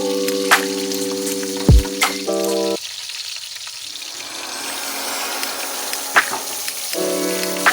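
Food frying in hot oil in a pan, a steady sizzle, with a few sharp knocks of a utensil against the pan during stirring. Background music plays until about three seconds in and comes back near the end.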